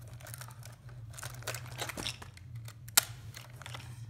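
Handling noise from a vintage Yashica Minimatic-S rangefinder camera: scattered rustles and small clicks from its parts, strap and lens cap, with one sharp click about three seconds in.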